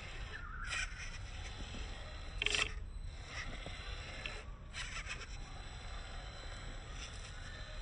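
A WPL C24 RC crawler's 370 brushed motor and single-speed gearbox whirring in three short throttle bursts as it crawls over a mossy rock. A steady low rumble runs underneath.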